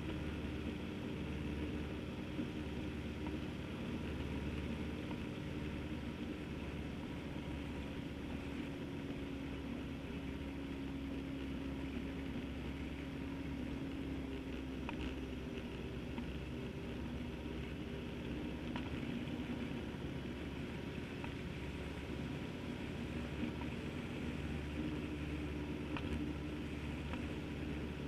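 Motorcycle engine running steadily as the bike rides along, its pitch drifting a little up and down with speed, over a steady rush of wind and road noise.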